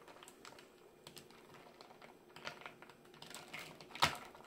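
Bar spoon stirring ice cubes in a tall highball glass of whisky and soda: a run of light, irregular clinks of ice and spoon against the glass, with one louder clink about four seconds in. It is a gentle stir, meant not to knock the fizz out of the soda.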